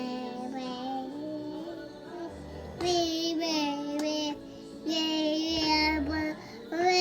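A young boy singing in long, held notes, phrase after phrase, with short pauses between them. A man's low snore comes twice beneath the singing, about three seconds apart.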